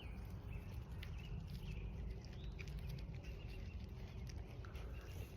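Purple martins giving scattered short, faint chirps over a steady low rumble.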